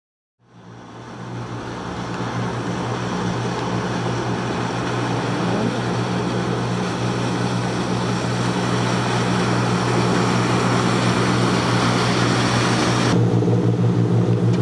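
Motorboat engine running steadily under a broad rush of water and wind, fading in over the first second or two. Near the end the rushing drops away and the engine hum comes to the fore.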